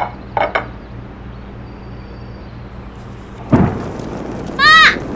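A sudden low boom about three and a half seconds in, followed shortly by a short, loud, high-pitched squeak that rises and falls. Both are edited-in sound effects over faint background music.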